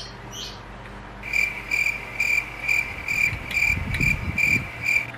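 Rhythmic high-pitched chirping like an insect's, about three short chirps a second, starting about a second in and stopping suddenly at the end. A low rumble joins it for a second or two in the middle.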